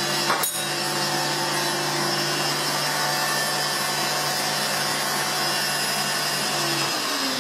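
Electric stand mixer running steadily at high speed, its wire whisk beating egg whites into glossy meringue in a glass bowl; a sharp knock about half a second in.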